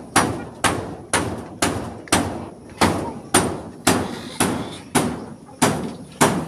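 Steady knocking, about two sharp knocks a second, each with a short ring after it.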